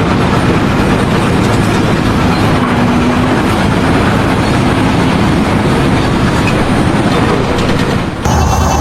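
Loud, steady rattling mechanical noise that stops abruptly near the end.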